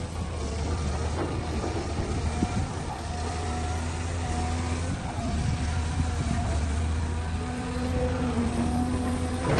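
Caterpillar hydraulic excavator's diesel engine and hydraulics running under load, the engine note shifting as it digs and swings, with dirt thudding and rattling into a steel dump-truck bed.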